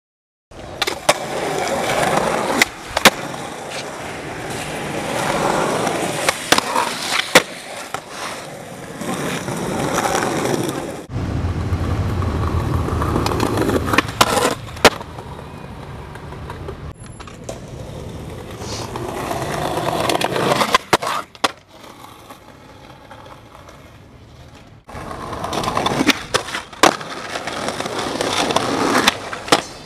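Skateboard wheels rolling over concrete and asphalt, the rolling noise rising and falling, broken by repeated sharp clacks of the board's tail popping and the board landing. The sound changes abruptly at two cuts between separate takes.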